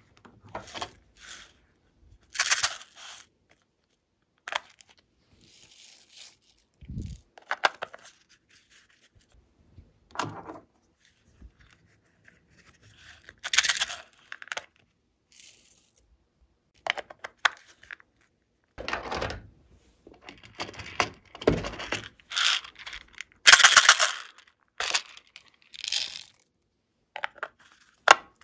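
Glossy slime being stretched, pressed and squished by hand, in many short bursts of sound with quiet gaps between, the loudest about three-quarters of the way through.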